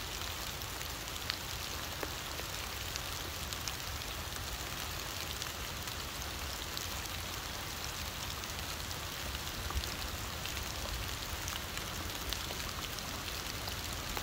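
Steady rain falling on leaves and ground, an even hiss dotted with scattered sharp drip ticks.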